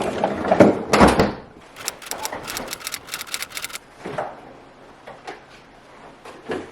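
Refrigerator and freezer being emptied: a couple of loud knocks in the first second or so, then a quick run of sharp clicks and rattles, and a few softer knocks later, as doors, drawers and containers are handled.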